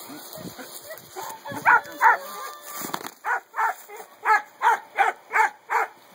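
A rapid run of short, loud animal calls, about three a second, starting about three seconds in, with a few scattered calls before.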